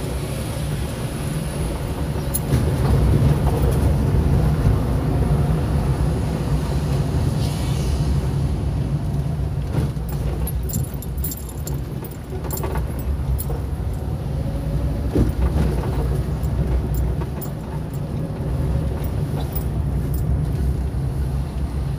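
Car interior noise while driving slowly on a town street: a steady low rumble of engine and tyres, with light rattling clicks from inside the car from about a third of the way in.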